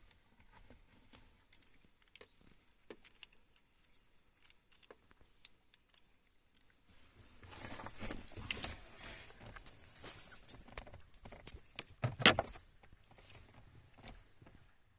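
Handling noise: faint scattered clicks, then a louder stretch of rustling and clicking from about halfway in, with one sharp click near the end.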